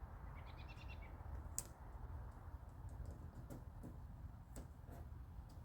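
Faint scattered clicks and light handling noise as masking tape and rubber trunk weatherstrip are worked by hand, with a short high chirp about half a second in.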